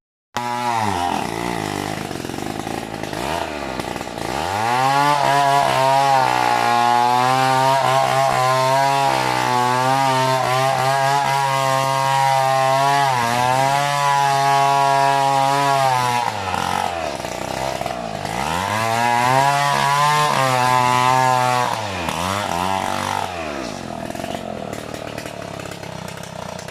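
Chainsaw cutting into a coconut palm trunk, held at high revs for several seconds at a time and dropping back to lower revs several times in between.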